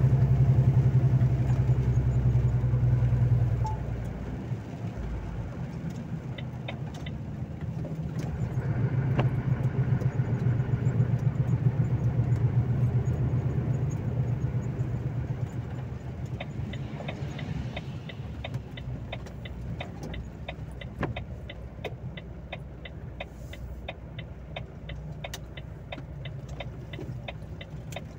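Volvo FH 460 truck's six-cylinder diesel engine heard from inside the cab: it pulls hard at first, eases off about three or four seconds in, pulls again for several seconds, then runs quietly. From a little past halfway, the turn indicator ticks steadily, a few clicks a second.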